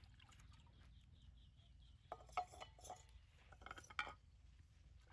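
Faint clinks and light knocks of drinking glasses being washed by hand in a basin of water, a few sharp clinks about two seconds in and again near four seconds.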